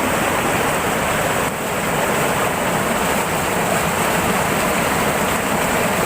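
Fast-flowing floodwater rushing, a steady loud wash of noise with a brief dip about one and a half seconds in.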